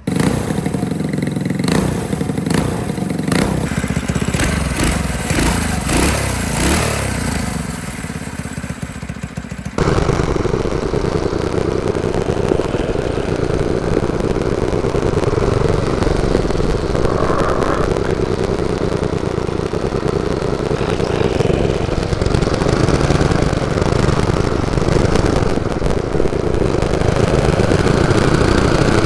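Mini bike's Predator 212 single-cylinder four-stroke engine, fitted with its stock exhaust, starting and running, revved up and down several times. About ten seconds in the sound changes abruptly to steady engine running.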